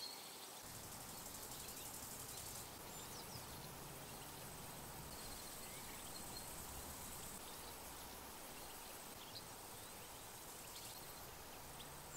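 Faint field ambience: a bush-cricket's high, thin buzzing song that runs in stretches of a couple of seconds with short pauses, over a low background rumble, with a few faint bird chirps.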